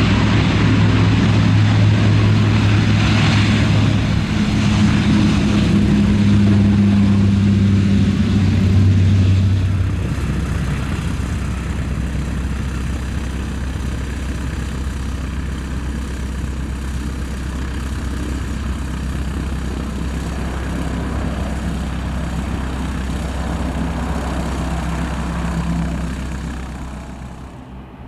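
Bombardier Dash 8 Q400 turboprop at takeoff power, its two six-bladed propellers giving a loud steady drone with a strong low hum during the takeoff roll. About ten seconds in the propeller hum drops away and a softer, steadier rumble remains as the aircraft climbs out, fading near the end.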